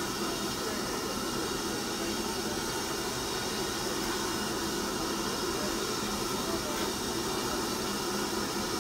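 Steam locomotive standing and blowing off steam: a steady, unbroken hiss.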